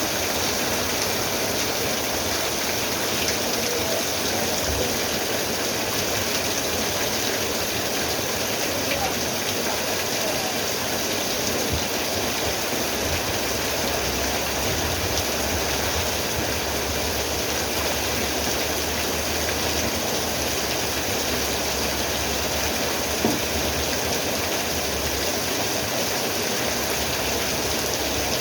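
Steady rain falling, an even hiss without a break, with a low rumble coming and going in the second half.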